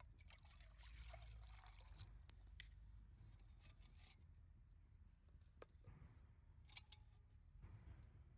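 Water poured from an insulated tumbler into a metal camp pot: a faint trickle for about two seconds, then a few light clicks and taps as the pot and tumbler are handled.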